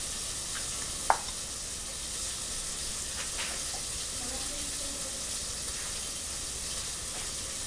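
Chicken pieces frying in oil, a steady hiss of sizzling. A single sharp tap about a second in.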